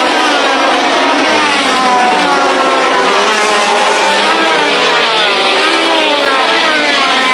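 1970s Formula 1 racing engines at high revs. Several engine notes overlap, each rising and falling in pitch as the cars pass and change gear.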